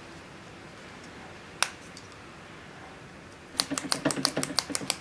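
Trigger switch of an old Bosch electric impact driver, out of the tool, clicked once, then snapped on and off rapidly, about eight clicks a second, near the end. The contacts are being worked open and closed while wet with contact cleaner, to scrub off corrosion that makes the tool cut out.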